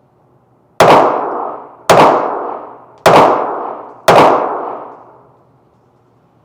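Four shots from a Ruger Mark IV .22 LR pistol fired at a steady pace about a second apart, each followed by an echo that dies away over about a second.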